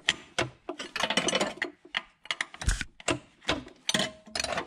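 A wrench working the 24 mm nut of a canister automatic transmission filter loose: irregular runs of sharp metallic clicks and clinks, with one duller knock a little past the middle.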